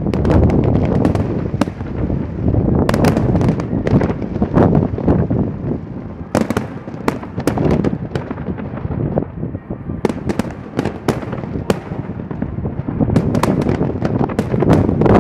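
Fireworks going off: many sharp bangs and cracks in quick, uneven succession over a continuous low rumble.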